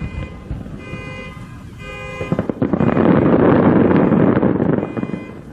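Large aerial firework shells bursting, with a dense booming crackle swelling loudest about halfway through. Before that, several steady horn tones sound together.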